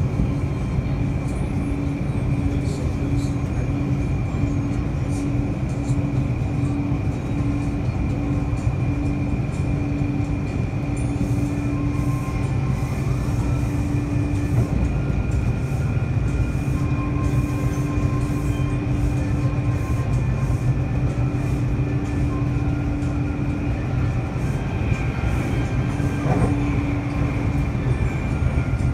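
Taipei Metro C301 train running along the line: a steady rumble of wheels on track, with a constant high tone and a lower hum that fades in and out. A short rising whine comes near the end.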